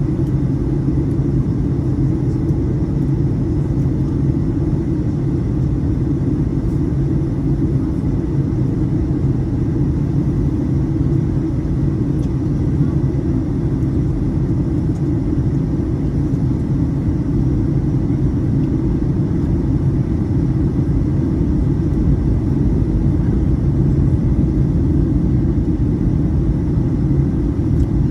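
Steady low rumble of a jet airliner's engines and airflow heard from inside the passenger cabin, growing slightly louder in the last few seconds.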